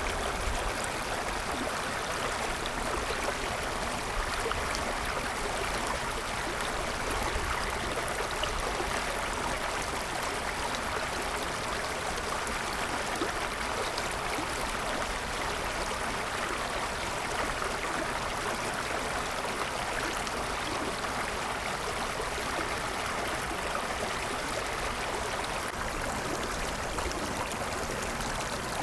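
A small stream running over a little waterfall, recorded up close: a steady, even rush of flowing water.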